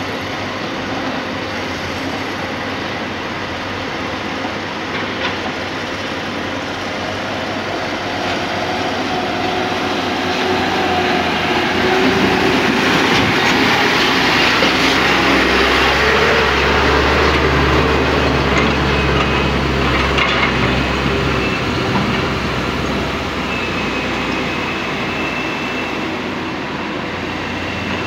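Diesel engines of Hino Dutro dump trucks running. The sound grows louder toward the middle, where a low drone comes in as a truck is close by, then eases off again.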